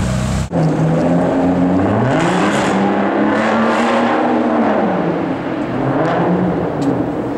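Supercar engine accelerating hard, its pitch climbing in steps and then falling away as the car goes by.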